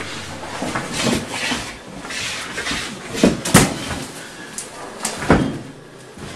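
Several dull knocks and thumps with rustling between them, the loudest about three and a half seconds in.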